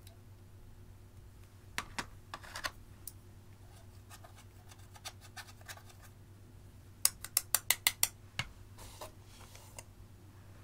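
A small pointed tool clicking and scraping pressed eyeshadow out of the pans of a plastic palette. It makes scattered sharp clicks, a quick run of about seven clicks a little past the middle, a single knock, and a short scratchy scrape near the end.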